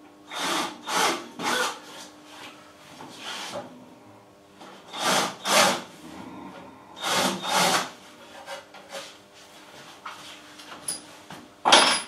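Scraping strokes worked by hand across the wood of a wooden birdhouse, coming in back-and-forth groups about half a second apart with pauses between. A short, loud, sharp clack comes near the end.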